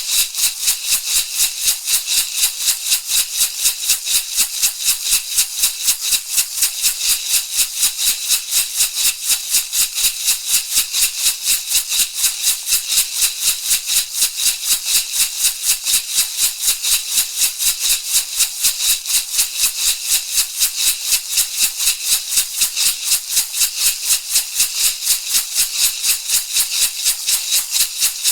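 Shamanic rattle shaken in a fast, even, unbroken rhythm, each shake a dry, hissy rattle of seeds or pebbles.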